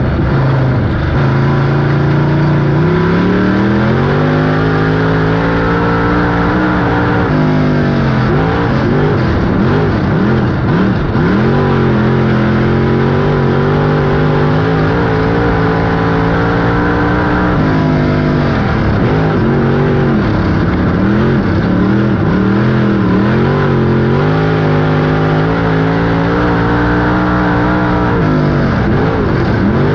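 Dirt-track stock car engine heard from inside the cockpit, running hard down the straights and lifting off through the turns. The pitch climbs and holds on each straight, then drops and wavers through the corners, about once every ten seconds, three times.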